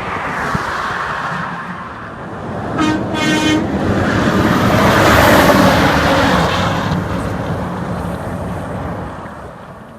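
A truck horn gives one short blast about three seconds in, then the noise of a passing truck rises to a peak and fades away.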